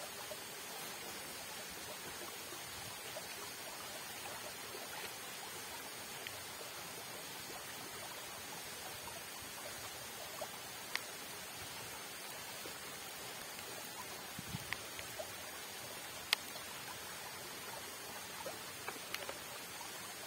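Steady rush of fast-flowing water in an irrigation channel, with a few short sharp clicks in the second half.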